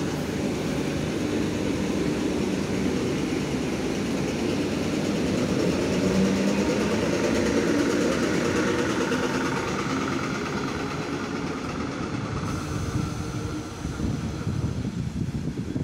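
A four-car ER9M electric multiple unit rolls steadily past close by, with the noise of its wheels running on the rails. The sound thins out near the end as the train draws away.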